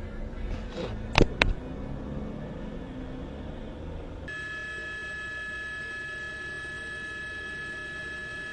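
Low vehicle and traffic rumble with two sharp clicks a quarter second apart about a second in. A little after halfway it cuts to a steady, high whine made of several even tones.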